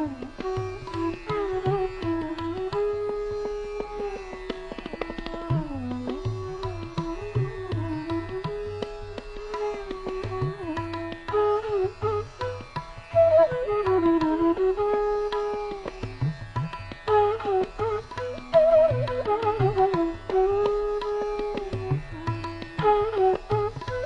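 Background instrumental music in an Indian classical style: a melody with sliding, bending notes over low hand-drum strokes.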